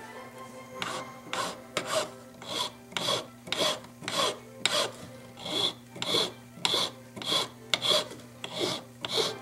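Small flat hand file rasping back and forth across a ring's metal bezel setting in short, even strokes, about two a second, starting just under a second in. The jeweller is filing down the bezel's angle on the sides to fit a cabochon stone.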